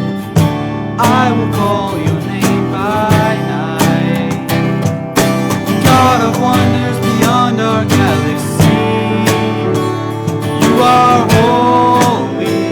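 Acoustic guitar music, strummed chords under a gliding melody line.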